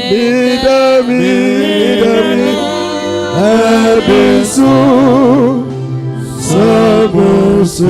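Gospel music with a singer's voice over instrumental backing: long held notes that slide between pitches, with a wavering vibrato note about halfway through.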